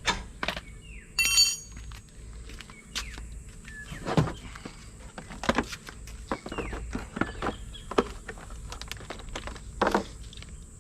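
Scattered metallic clicks and knocks of hand tools (spanners and a ratchet) on a caravan hitch's mounting bolts, with one short ringing metal clink about a second in.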